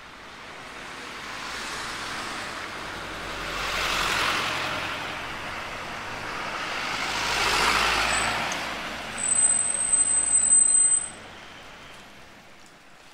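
Two road vehicles pass one after the other, each rising and fading as it goes by. About nine seconds in comes a loud, shrill, high-pitched squeal lasting about two seconds, which then cuts off.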